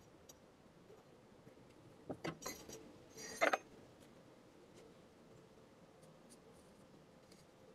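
A few light metallic clicks and then a short clatter with a little ringing, about three and a half seconds in: a steel hand file being handled and set down on the workbench beside a clamped axe head and steel plate.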